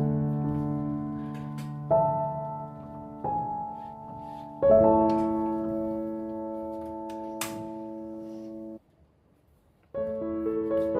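Soft background music of slow, sustained keyboard chords, each struck and left to fade. It breaks off for about a second near the end and then resumes.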